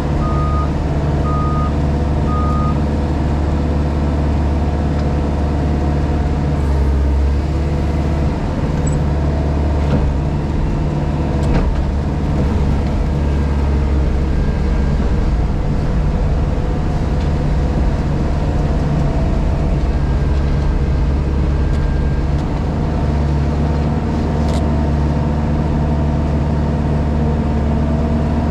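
JCB Pothole Pro's diesel engine running steadily, heard from inside the cab. A reversing alarm beeps evenly for the first three seconds or so, then stops. There are a couple of brief knocks about ten and twelve seconds in.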